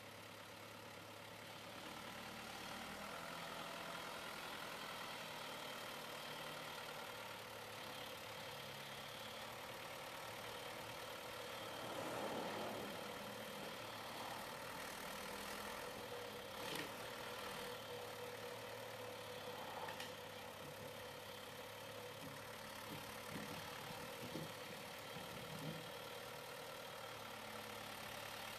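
John Deere 2650 tractor's diesel engine running steadily as the tractor works its front-loader forks up to a log pile. The engine swells briefly about twelve seconds in, and a few short knocks come near the end.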